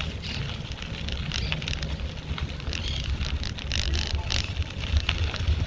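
Bicycle ride heard from on the bike: wind rumbling on the microphone, with many small clicks and rattles throughout.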